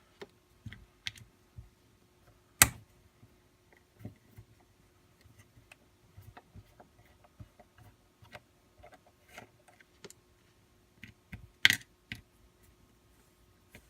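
Small clicks and taps from a screwdriver and screws working on a plastic pistol holster as its four screws are taken out, with one sharp click about two and a half seconds in and a short burst of clicks near the end.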